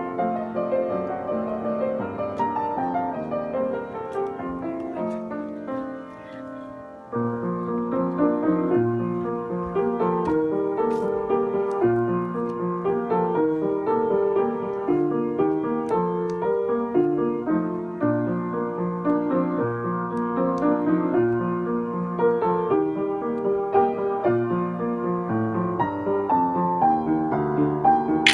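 Background piano music, a gentle melody with chords. It fades down about six seconds in and starts again a moment later.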